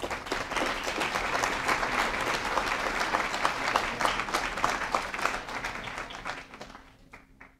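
Audience applauding, a dense steady patter of many hands clapping that fades out over the last second or so.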